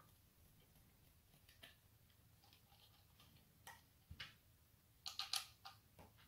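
Small screws and standoffs clicking and tapping against an acrylic plate as they are fitted by hand: scattered faint clicks, the loudest a quick cluster of three or four about five seconds in.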